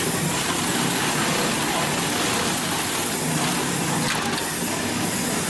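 Hightex 204-370-DP post-bed double-needle, triple-feed walking-foot sewing machine running steadily while stitching heavy leather, over an even mechanical hiss.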